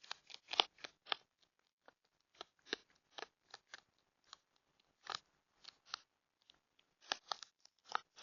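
A raccoon chewing: a run of short, crisp crunches at irregular intervals, thickest in the first second and again near the end.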